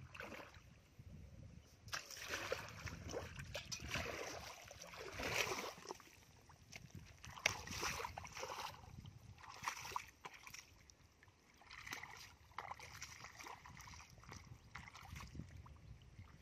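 Bare feet wading through shallow muddy water, splashing and sloshing with each step, a step every couple of seconds.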